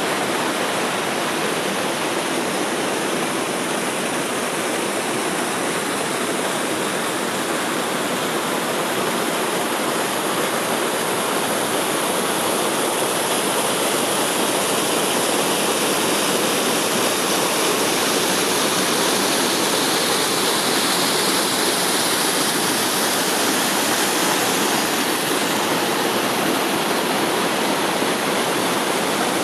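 Small waterfall pouring into a pool: a steady, even rush of falling water.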